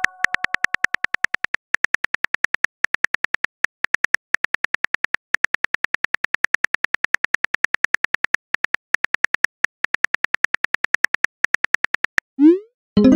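Phone keyboard click sounds from a texting-story app, a fast, even run of taps as a long text message is typed out. The taps stop about a second before the end, and a short rising swoosh follows as the message is sent.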